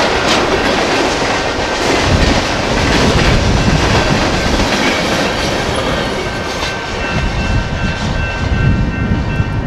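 Freight cars rolling through a road crossing, wheels clacking over the rail joints and the crossing with a heavy rumble. As the last car clears near the end, the rumble thins and the crossing signal bells ringing come through.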